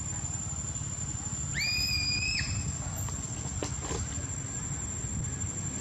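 A macaque gives one high, drawn-out cry of just under a second, rising quickly, holding level, then dropping off, over a steady low rumble.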